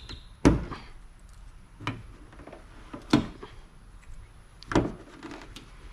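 Fasteners being pried out of a car's decklid with a screwdriver: four sharp snaps, spaced irregularly a second or more apart, as each one pops loose.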